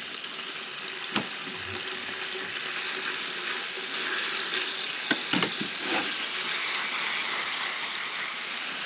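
Mushrooms, peppers, onions and okra sizzling steadily in a frying pan while being stirred with a utensil, with a few sharp knocks about a second in and again around five to six seconds.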